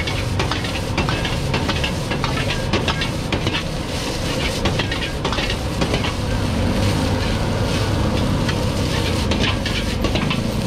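Rice frying and sizzling in a wok over a gas burner's steady rush, with a metal ladle scraping and clacking against the wok many times as the rice is stirred and tossed.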